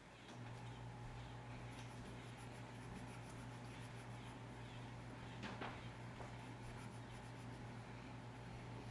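Faint scratching of a pencil on paper as stripes are drawn and filled in, over a steady low hum.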